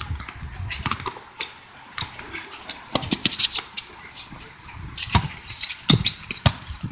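A basketball bouncing on an outdoor asphalt court as a player dribbles: irregular thuds, the loudest two coming about five and six seconds in.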